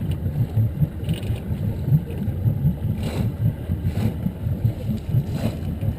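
Low, uneven rumble aboard a small fishing boat: wind on the microphone and the boat's outboard motor idling out of gear.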